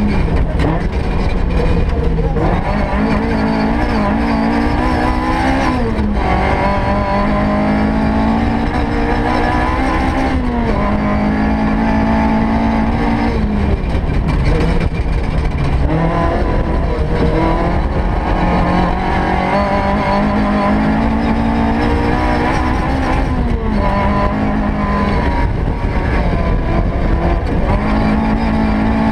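S1600 rally car engine from inside the cabin, revving hard and climbing in pitch, then dropping sharply at each gear change, again and again, over a steady rumble of tyres on gravel.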